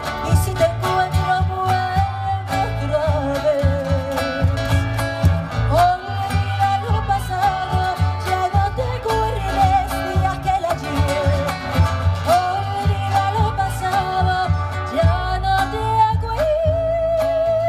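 Live mariachi band: a woman sings a ranchera melody in long held notes with vibrato, sliding up into several of them, over strummed guitars and a steady deep bass.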